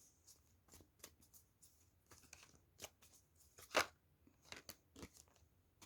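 Tarot cards being handled and drawn from the deck: faint scattered rustles and soft clicks, with one sharper card snap about four seconds in.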